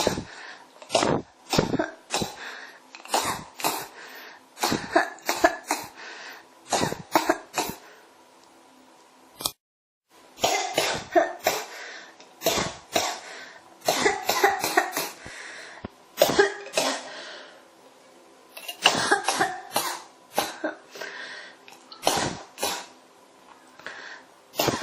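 A person coughing in repeated fits of short, sharp coughs, one after another with little pause, breaking off briefly about ten seconds in before starting again.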